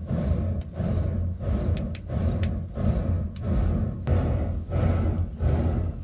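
Clay furnace roaring under forced air from hand-worked pot bellows, the rush of air and fire swelling and dipping with each bellows stroke, about one and a half times a second. A few sharp crackles from the burning fuel about two seconds in.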